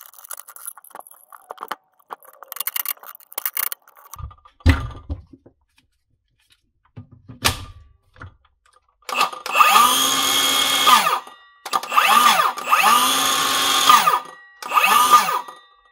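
Milwaukee M18 FUEL brushless 7-1/4" circular saw run unloaded in four short bursts, the second very brief. Each time the motor and blade spin up with a rising whine and drop quickly in pitch as the electric brake stops the blade. Before that come light handling clicks and two thumps as the saw is set down.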